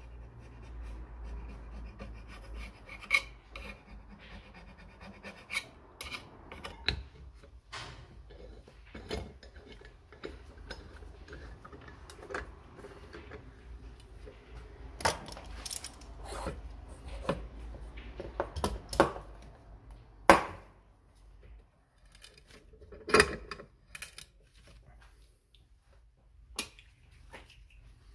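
A metal scraper blade scraping old gasket off the sealing face of an aluminium motorcycle engine cover, in irregular strokes with sharp metallic clicks and knocks.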